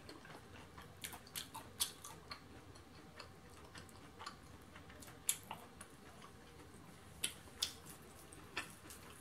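Faint, scattered crackles and clicks of the crispy breading on a fried chicken wing as it is handled and pulled apart by hand, with quiet chewing.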